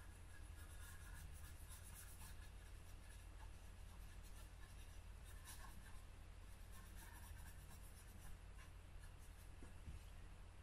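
Faint, irregular scratchy strokes of a small soft detailing brush sweeping dust from a car's dashboard air-vent slats and trim, over a low steady hum.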